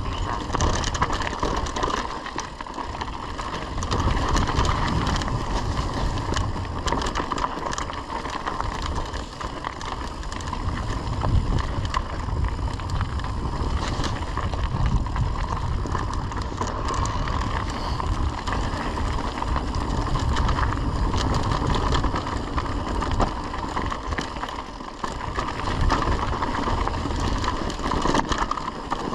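Mountain bike rolling along a narrow dirt and gravel singletrack: knobby tyres crunching over grit and stones, with frequent small rattles and clicks from the bike and wind on the microphone. The noise swells and dips with the terrain and includes a steady whine.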